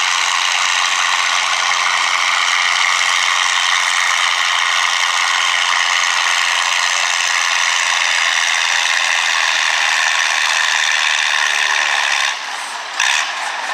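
Antique farm tractor pulling a weight-transfer sled down a tractor-pull track: a loud, steady mechanical clatter and rattle, briefly dropping away about twelve seconds in.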